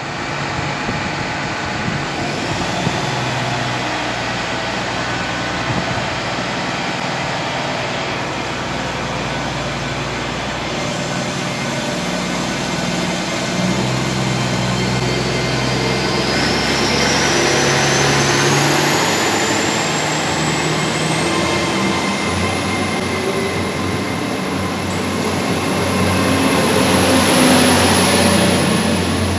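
CrossCountry HST Class 43 power car 43 304 pulling away under power, its MTU 16V4000 diesel engine working hard with a steady low drone. About halfway through, a high turbocharger whistle climbs in pitch and then holds. The sound is loudest near the end, as the power car passes close by.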